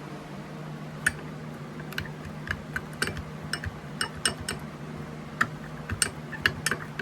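Irregular quick clicks and taps of a stirrer against a cup of melted soft-bait plastic being stirred and checked for runniness, over a steady low hum.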